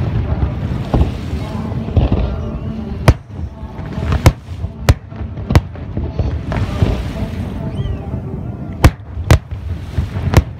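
Aerial fireworks shells bursting in a display, about seven sharp bangs at irregular intervals over a steady background noise.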